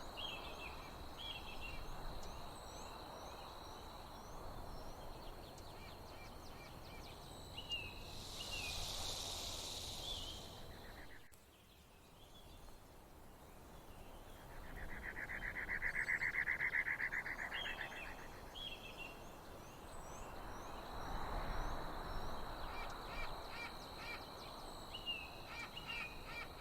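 Outdoor nature ambience: small birds chirp again and again over a steady, high, insect-like whine. A hissing buzz lasts about three seconds about a third of the way in, and a finely pulsing buzz about as long comes just past the middle.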